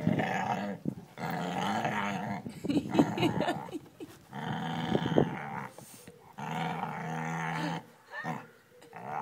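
Dog growling over a stick it is chewing, a run of low growls about a second each with short breaks between: a warning to another dog that wants to share the stick.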